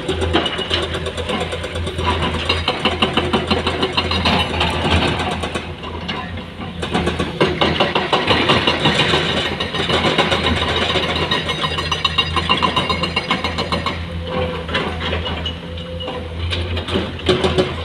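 Komatsu PC210 hydraulic excavator's diesel engine working under load as it digs and swings soil, with a steady low hum and a busy rattling beat that swells and eases, dropping back for a moment about six seconds in and again near the end.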